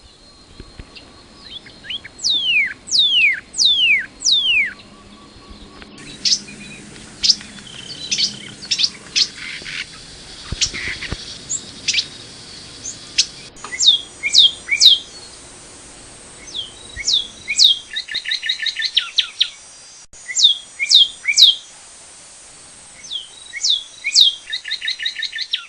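Northern cardinal singing: several series of loud down-slurred whistles, some followed by a quick run of short repeated notes. Sharp chip notes come in between the phrases.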